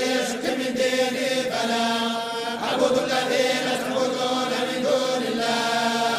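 Men's voices reciting the Quran together in unison, in the Moroccan collective hizb style, holding long drawn-out melodic notes.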